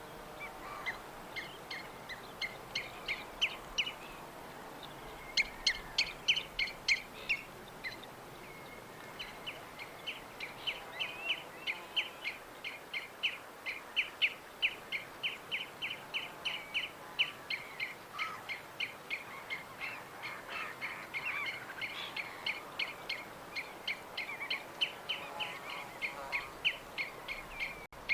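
Small songbirds chirping: quick, short chirps repeated several times a second over a faint steady hiss. A louder run of chirps comes about five to seven seconds in, followed by a brief lull.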